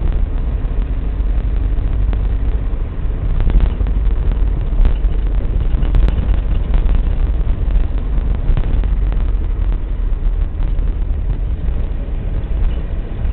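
Steady low rumble and noise of a vehicle on the move.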